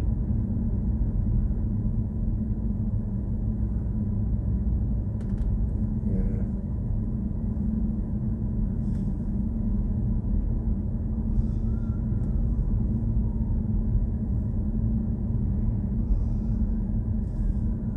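Steady low road and tyre rumble inside the cabin of a BMW i4 M50 as it drives. The car is electric, so there is no engine note.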